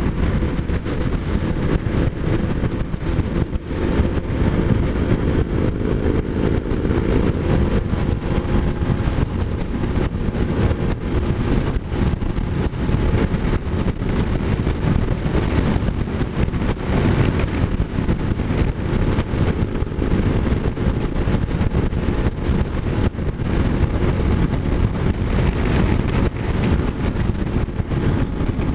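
Kawasaki motorcycle cruising at road speed, heard from the rider's position: steady wind rush buffeting the microphone over the engine's running note, which shows most plainly in the first few seconds.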